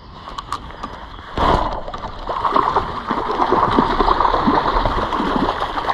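Hooked trout splashing at the water's surface as it is played on a spinning rod: a sudden splash about a second and a half in, then continuous splashing and gurgling.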